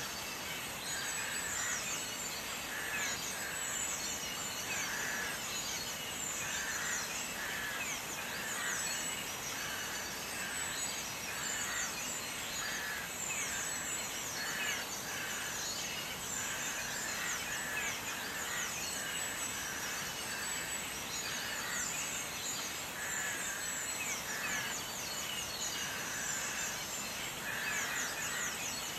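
Diced onions sizzling in oil in a stainless steel pot, a steady sizzle full of fine crackles.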